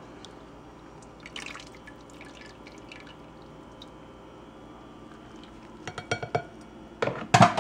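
Cooked beef roast lifted with a plastic slotted spoon out of a stainless steel Instant Pot inner pot: faint drips of juice and small clicks, then a few louder knocks of the spoon against the pot and plate near the end.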